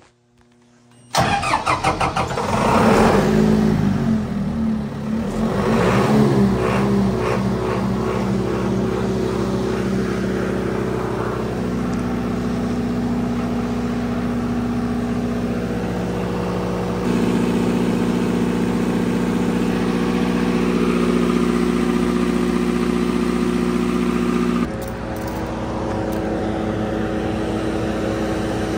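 Standby generator engine cranked and firing up about a second in, its pitch swinging over the first several seconds before it settles into a steady run. The engine slowing after start-up is put down to a recent fuel filter change. A few seconds before the end the tone shifts and the engine keeps running steadily.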